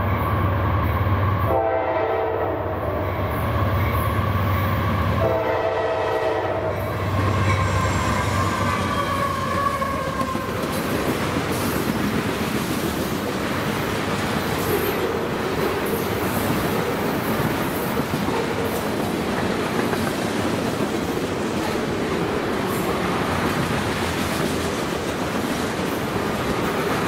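Diesel freight locomotive sounding two long horn blasts for a grade crossing as it approaches and passes, its engine rumbling beneath. From about ten seconds in, a string of tank cars rolls by with steady wheel-on-rail clatter.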